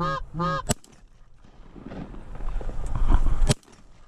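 A fast, even run of goose honks, about three a second, ending in a sharp crack under a second in; then a rustling, scuffing noise that grows louder and stops abruptly with another sharp crack near the end.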